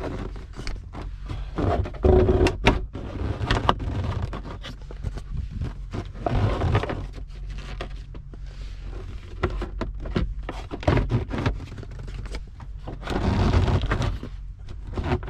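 Plastic center console of a Ford Focus being wiggled and pulled up out from between the front seats: plastic scraping and rubbing against the seats and trim, with repeated knocks and clicks. The longer scraping stretches come about two seconds in, halfway through and near the end.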